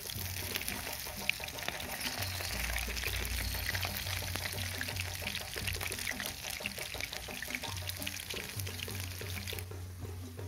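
Batter-coated durian flowers sizzling and crackling in a pan of hot oil as they are stirred with a bamboo spatula; the sizzle drops away near the end. Background music with a steady low beat plays throughout.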